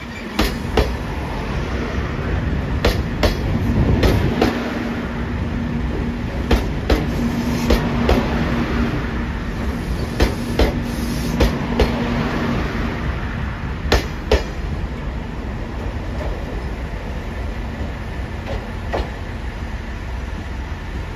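JR Shikoku 8000-series limited-express electric train in Anpanman livery rolling slowly past, its wheels clacking unevenly over rail joints over a steady rumble. A steady low hum joins in from about four seconds in for several seconds, and the clacks thin out near the end.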